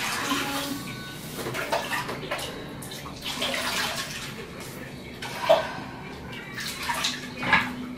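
Bath water scooped up by hand and poured back over a body in a filled bathtub, splashing and trickling irregularly, with louder splashes about five and a half and seven and a half seconds in.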